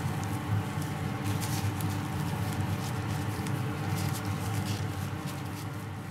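Plastic-gloved hands tearing soy-braised beef apart by hand: soft crackling and squishing with many small ticks, over a steady low hum.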